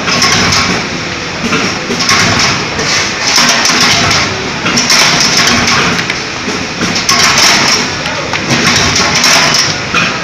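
Flywheel mechanical power press running and punching out slipper soles, a dense clatter of repeated strokes that swells louder every second or two.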